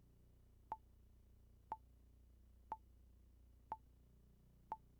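Short, sharp timer ticks, one a second, five in all: a quiz countdown clock sound effect running during the pause for the answer.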